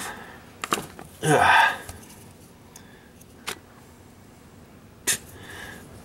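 Hands handling a just-disconnected plastic electrical connector and its wiring among engine-bay parts: a short noisy rustle about a second in, then a few single sharp plastic clicks.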